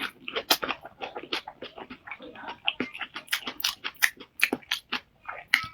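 Close-miked sounds of a person eating: biting and chewing, with quick irregular mouth clicks, several a second.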